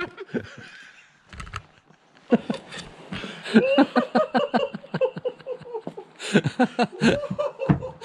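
A man laughing loudly, starting about two seconds in and carrying on in a long run of repeated laughs.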